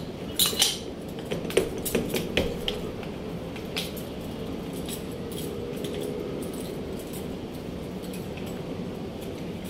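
Metal parts of a JX-28 jet chisel clicking and clinking as its bundle of steel needles and needle supporter are handled and fitted by hand. There are several sharp clinks in the first four seconds, then only a steady low background noise.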